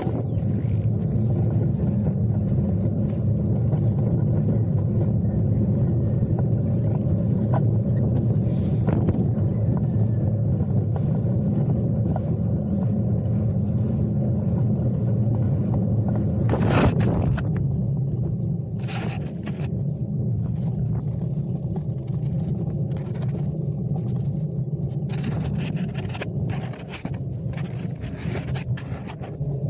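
SE Lager fixed-gear bike riding over asphalt: a steady low rumble from the tyres on the road, with rattling and jangling clicks. There is a sharp knock about halfway through, followed by more scattered clicks.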